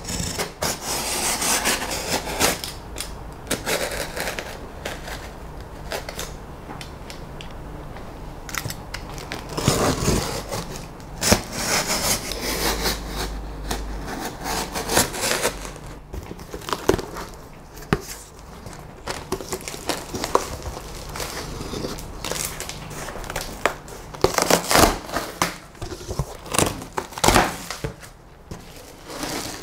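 Cardboard shipping box being cut open with a utility knife: the blade slitting packing tape, then cardboard flaps and foam packing handled, with irregular scraping, tearing and crinkling and occasional sharp knocks.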